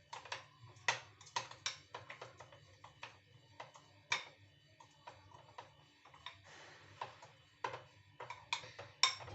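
Light, irregular clicks and taps, a few each second, like utensils or a cup being handled against a dish, over a steady low hum.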